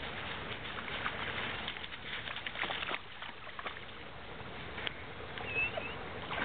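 Water sloshing and splashing with many small clicks as a dog wades through a shallow creek. A short bird chirp comes near the end.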